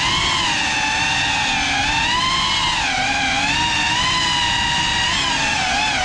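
Small FPV quadcopter's motors and propellers whining, with the pitch sweeping up and down as the throttle changes.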